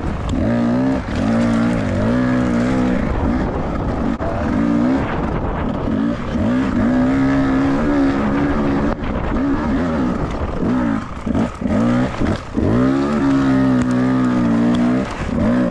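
Beta 300RR two-stroke dirt bike engine revving hard, its pitch rising and falling again and again, with a run of short throttle blips about two-thirds through before it is held high again.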